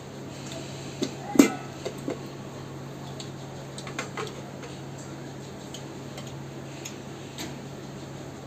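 Dishes clinking: a few sharp taps of china plate and bowls as rice is mixed and served by hand, the loudest about one and a half seconds in, over a steady low hum.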